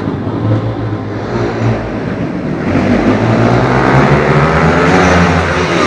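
Pit bike engine running, its note shifting and growing louder in the second half.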